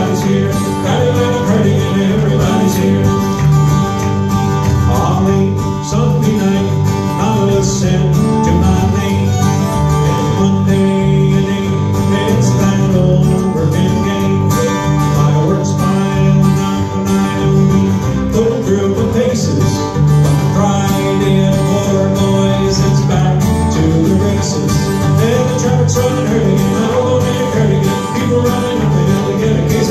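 A live folk band playing a song: two acoustic guitars strummed, a fiddle and an electric bass guitar.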